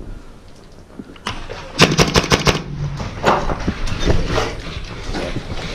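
Magazine-fed paintball marker firing a rapid string of about seven shots in under a second, about two seconds in, followed by a few scattered single pops.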